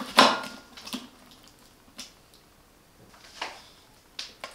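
Clicks and knocks of the fuel tank cap being turned and lifted off the plastic top cover of a Parkside PISE 800 A1 inverter generator, the loudest knock just after the start and fainter clicks about a second apart after it.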